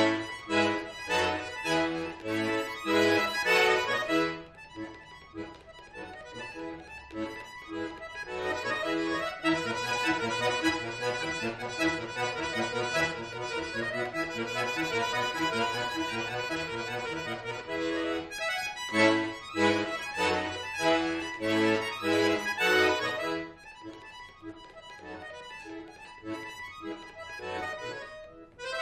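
Solo chromatic button accordion (bayan) playing: quick detached notes at first, then a softer stretch, then a louder passage of held, sustained chords in the middle, then quick detached notes again, and softer playing near the end.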